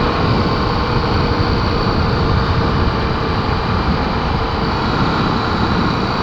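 Honda XR250 Tornado's single-cylinder four-stroke engine running at a steady speed while riding, with wind rushing over the action camera's microphone.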